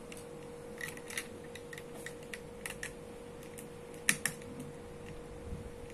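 Plastic Lego pieces clicking and tapping as they are handled, a scatter of small irregular clicks with two sharper ones close together about four seconds in.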